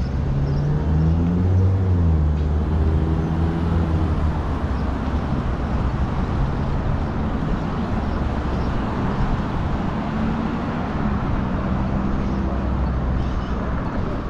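City street traffic: a vehicle engine rising in pitch as it accelerates past in the first few seconds, then a steadier engine hum later, over continuous traffic noise.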